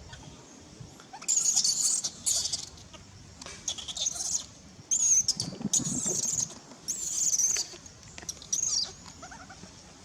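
Baby monkey crying in a run of high-pitched shrill screeches, about seven in all, with short pauses between them, the cries of a hungry infant calling for its mother's milk.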